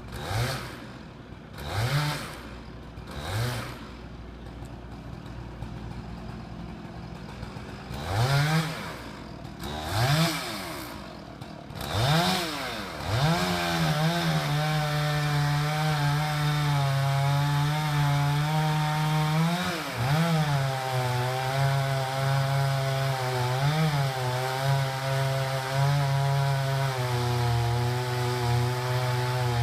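Chainsaw revved in a few short blips at first, then held at full throttle from about 13 seconds in, cutting steadily through the trunk of a large fir, its pitch sagging briefly now and then as the chain takes load.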